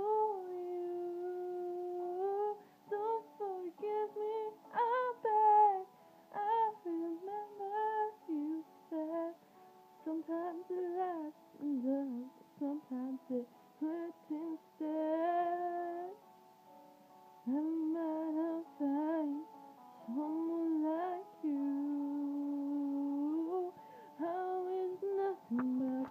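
A woman singing solo in a small room, holding long wavering notes in phrases broken by short pauses.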